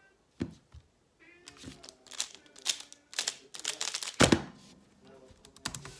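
X-Man Bell Pyraminx being turned very fast in a speed solve: a dense run of quick plastic clicks and clacks that ends in a loud thump about four seconds in as the puzzle is set down. A single knock comes near the start.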